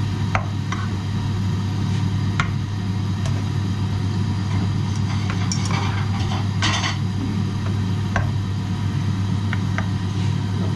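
A steady low mechanical hum, with scattered light clicks and a short scrape of utensils on dishes and pans.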